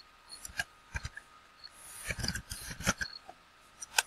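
Computer keyboard keys being typed: a scattered run of short, light clicks, several bunched together near the middle.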